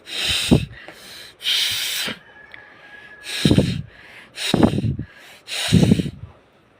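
Forceful nose blowing: five short, hard blasts of air through the nose about a second apart, several with a fluttering rattle that drops in pitch. The nose is already clear, so nothing is left to blow out.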